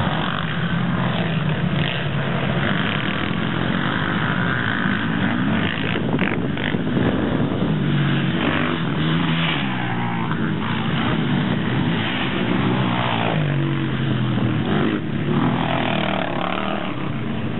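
Racing quad bikes' engines revving hard, pitch rising and falling again and again as the riders open and close the throttle over the hills of a dirt track.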